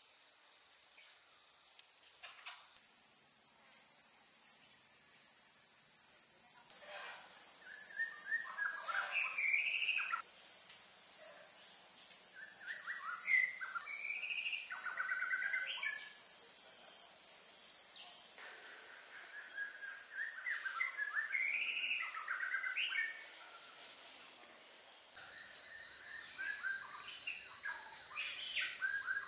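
Forest ambience: a steady high-pitched insect drone with birds chirping and calling over it. The drone jumps abruptly in pitch and loudness a few times, as at edit points.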